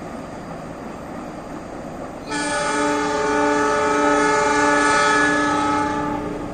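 Diesel locomotive's multi-tone horn sounding one long blast of several steady notes at once, starting about two seconds in and lasting about four seconds.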